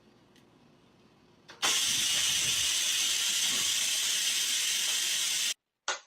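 A loud, steady hiss lasting about four seconds that starts abruptly and cuts off suddenly.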